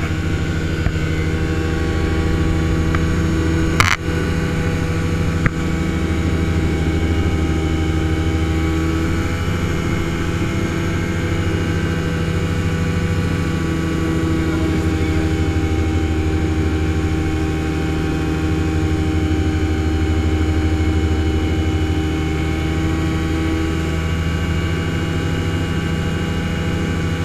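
Ultralight aircraft's engine and propeller droning steadily in cruise flight, heard from inside the cockpit with wind hiss. There is one sharp click about four seconds in.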